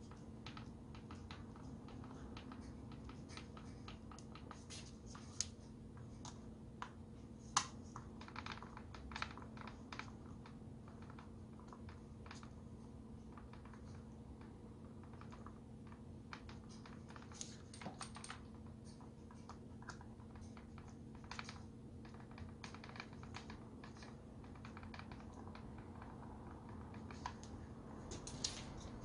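Faint, irregular clicks and taps of a screwdriver driving the screws of a plastic electric-drill housing, with the housing being handled, as the drill is closed up after its power cord has been replaced. A steady low hum runs underneath.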